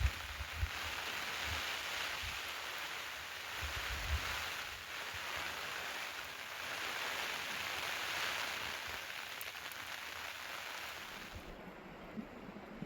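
Steady rain falling, an even hiss that thins out near the end.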